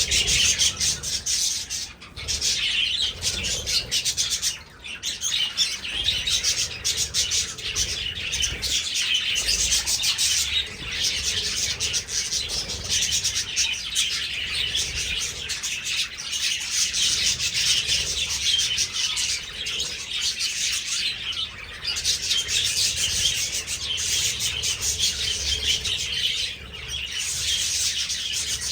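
A flock of budgerigars chattering and chirping continuously, a dense overlapping twitter, with occasional wing flapping.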